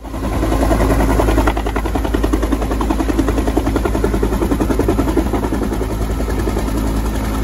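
Helicopter with its rotor beating in a rapid, steady pulse over a constant low engine drone.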